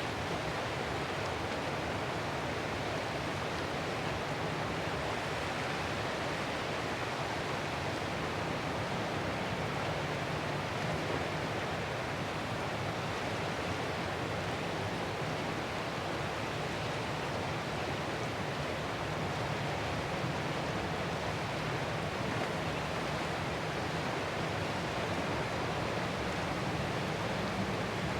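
Ocean surf as a steady, even rush of noise, with no single wave breaking out above the rest.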